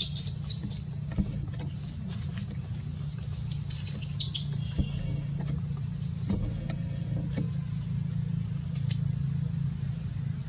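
Steady low hum of a running engine, with short high squeaks and clicks now and then, mostly just after the start and around four seconds in.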